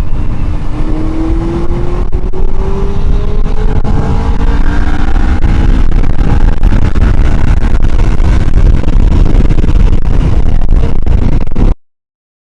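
Kawasaki Ninja 650 parallel-twin engine pulling under acceleration, its pitch rising steadily over the first four or five seconds, under heavy wind noise on the microphone. The sound cuts off abruptly shortly before the end.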